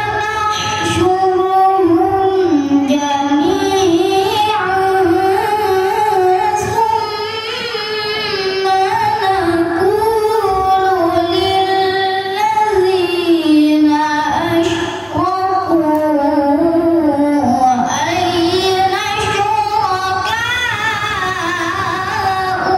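A boy reciting the Quran in the melodic tilawah style into a microphone: long, ornamented phrases held on sustained notes, with a short breath pause about fifteen seconds in.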